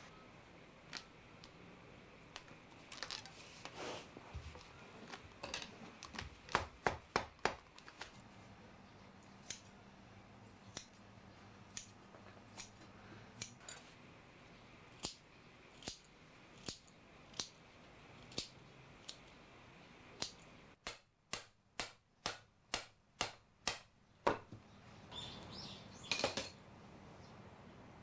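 Sharp clicks and taps from handwork on a thick silk cord: a quick run of clicks, then single clicks about a second apart, then a faster, louder run of about eight clicks, with a brief cloth rustle near the end.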